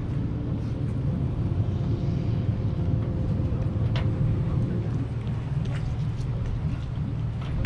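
Boat engines idling: a steady low rumble with an even hum, and a single sharp knock about four seconds in.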